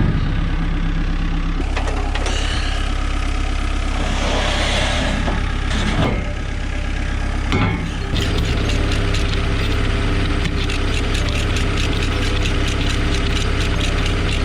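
CAT 304C mini excavator's diesel engine running steadily while it is worked off a trailer, with noisy surges in the first half. About halfway through, a fast even clatter sets in over the engine.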